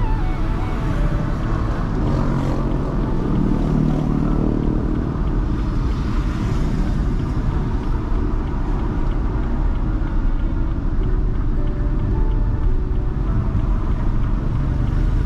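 Steady low rumble of engine and tyre noise from a car being driven.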